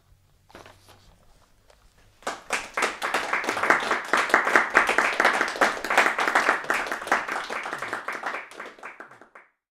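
Audience applause starts about two seconds in, after a little faint paper rustling, then thins out and stops near the end.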